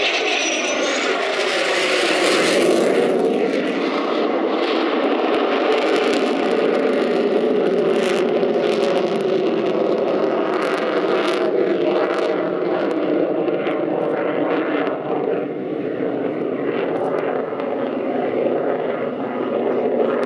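Fighter jet's engine running at high power overhead, a loud, steady roar of jet noise.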